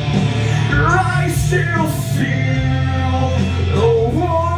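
A man singing into a handheld microphone over a rock backing track, his voice coming in about a second in and holding long notes.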